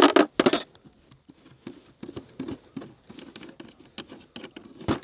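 Handling noise: a series of short knocks and metallic clinks, the loudest cluster in the first half-second and another sharp knock near the end.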